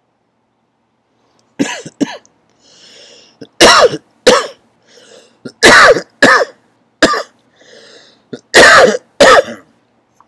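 A person coughing hard about nine times, mostly in pairs, with quieter breaths drawn in between.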